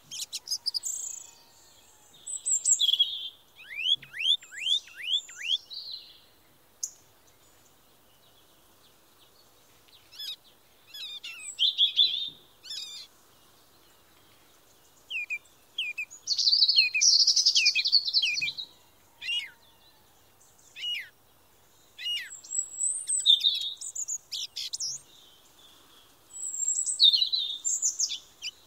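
Songbirds chirping and singing: clusters of quick high chirps, sweeping notes and trills, broken by quiet gaps of a few seconds.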